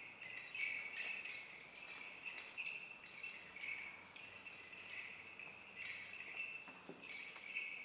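Small bells on the chains of an Orthodox censer jingling as it is swung, in quick shakes about two a second.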